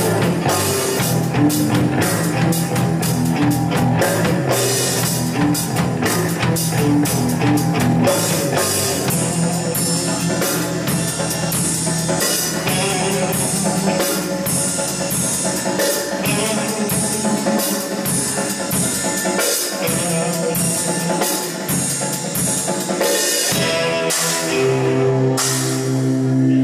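Rock music with a drum kit played busily over guitar and held bass notes.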